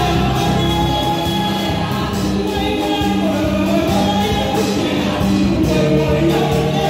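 Gospel song sung by several voices into microphones, with instrumental accompaniment.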